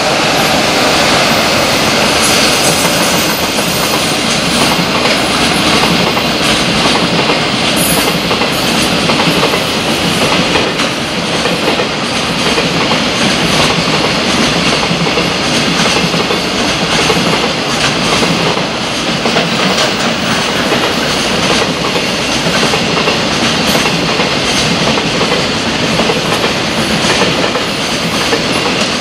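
Long freight train of container wagons running past at speed, its wheels clattering over the rail joints in a steady stream of clicks.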